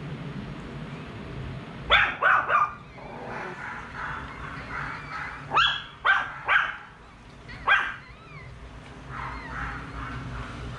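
Newborn chihuahua puppies crying while being handled: about seven short, sharp yelps in three quick groups, with fainter thin squealing in between.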